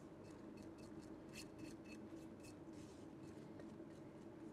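Near silence, with faint scattered light ticks and rustles of crushed biscuit crumbs being poured from a glass container into a steel cake ring.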